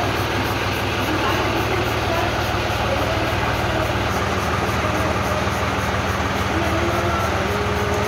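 Tractor engine idling steadily, its low note shifting slightly about halfway through, with faint voices in the background.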